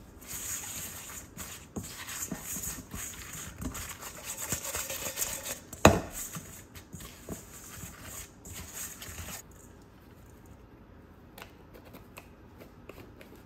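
Fried chicken pieces being tossed with seasoning powder in a stainless steel bowl with a silicone spatula: crisp rustling and scraping, with one sharp knock about six seconds in. The handling dies down to a few soft clicks after about nine seconds.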